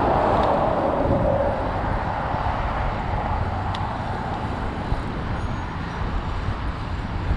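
Wind buffeting the microphone and tyre hum from a bicycle ridden along a paved path, a steady low rumble. In the first second and a half a louder whoosh falls in pitch and fades.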